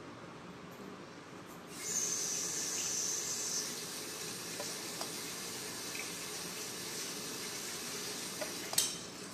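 Water running steadily from a kitchen tap, turned on about two seconds in and shut off near the end, with a sharp click just before it stops.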